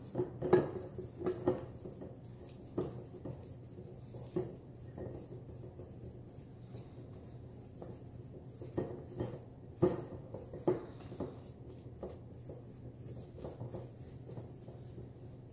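Wooden spoon stirring thick whipped chocolate cream in a stainless-steel mixing bowl, with irregular soft scrapes and knocks of the spoon against the metal.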